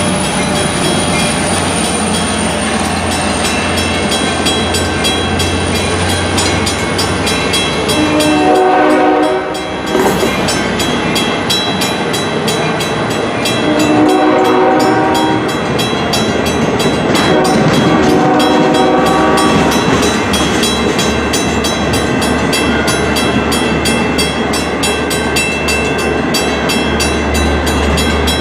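Long Island Rail Road train passing close by, running loudly, with its air horn sounding three chord blasts, roughly a third, a half and two-thirds of the way through.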